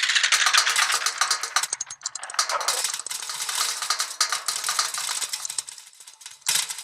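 Clockwork mechanism running: a rapid, dense clatter of small gear and ratchet clicks, with a short break about two seconds in.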